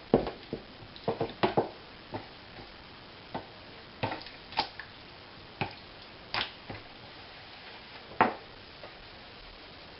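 Raw chicken pieces being turned over and handled in a container: an irregular scatter of short wet slaps and knocks.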